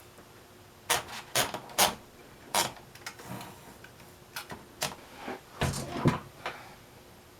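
Typewriter keys being struck one at a time in slow, irregular strokes, each a sharp clack, with a couple of heavier thumping strokes a little past halfway.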